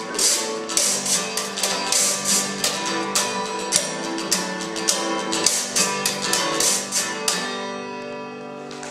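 Acoustic guitar strumming a folk tune with sharp clicking strokes on the beat, ending on a final chord that rings out for the last second and a half.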